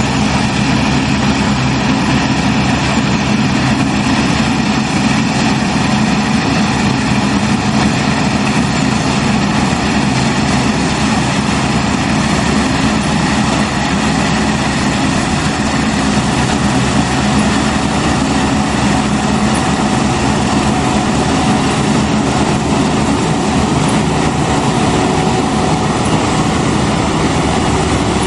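New Holland CSX7050 combine harvester running steadily under load while cutting and threshing: a steady engine drone mixed with the even rushing noise of the header and threshing machinery.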